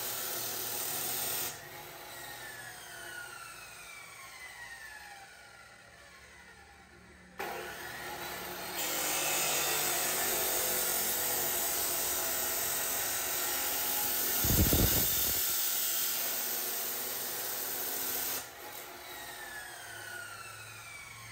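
Laxton LX249 14-inch abrasive cut-off saw grinding through thin square steel hollow tube. The cut ends about a second and a half in, and the motor winds down with a falling whine. About seven seconds in it starts again and grinds through the tube for about ten seconds, with one brief loud low thump partway. Near the end the trigger is released and the motor winds down again with a falling whine.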